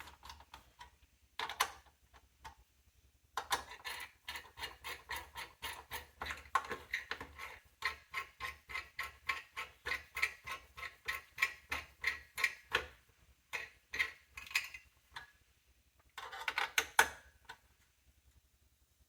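Small mechanical clicking in runs, about three to four clicks a second, with a long run through the middle and short bursts near the start and near the end.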